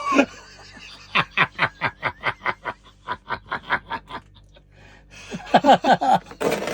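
A person laughing in quick, breathy chuckles, about four pulses a second, in two bouts with a short pause between them.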